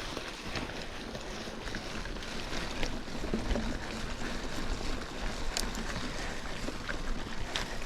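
Steady rushing noise of wind and movement on the microphone, with scattered small clicks; two sharper clicks stand out, one a little past halfway and one near the end.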